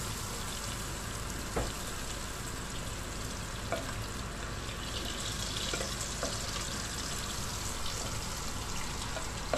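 Butter melting in a little oil in a pot on low heat, a steady sizzling frying hiss. A few light clicks as a spatula pushes the butter around the pot.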